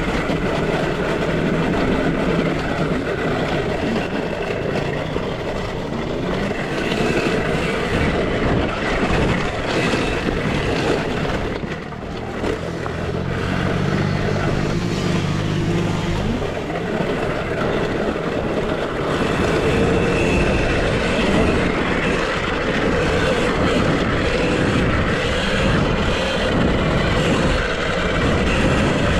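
Steady rush of riding noise from a KTM SX-E5 electric youth dirt bike racing over a dirt track: wind and running gear throughout. A lower engine-like hum comes in for a few seconds about halfway through.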